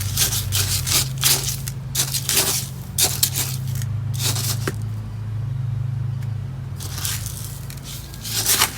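Gritty drainage material and potting mix being scooped and poured into a plant pot: a run of short scraping, crunching strokes, a pause of a couple of seconds, then a few more near the end.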